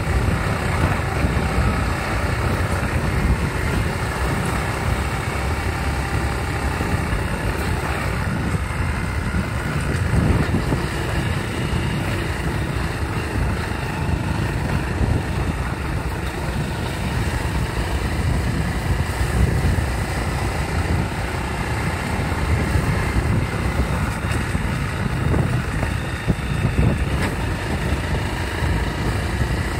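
Small motorcycle engine running steadily while riding along, with wind rumbling on the microphone.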